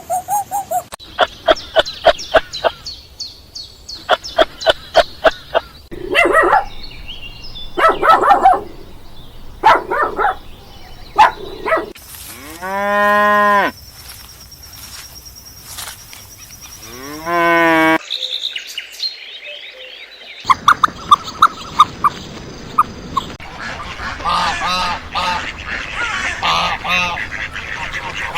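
A run of different animal calls from one short clip after another, among them long pitched calls like a cow's moo.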